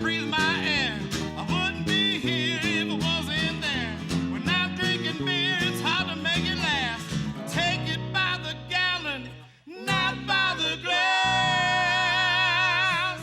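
Country band playing live, guitar under a wavering lead melody with no sung words. About two thirds through, the music drops away almost to nothing for a moment, then comes back with long held notes.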